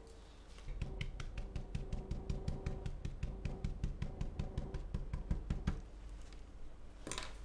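Stencil brush stippling paint through a stencil onto a textured fabric door mat: rapid light dabs, about seven a second, for about five seconds before stopping.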